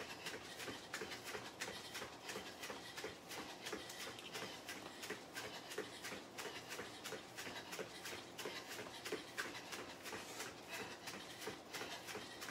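Bare feet landing on a foam floor mat during fast high knees: an even run of soft thuds, about four a second.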